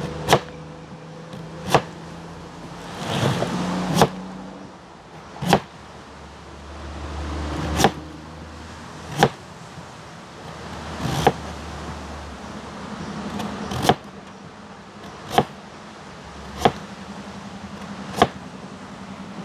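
A knife striking a wooden cutting board, a single sharp chop about every second and a half as vegetables are sliced for escovitch sauce. A low rumble swells and fades in the middle.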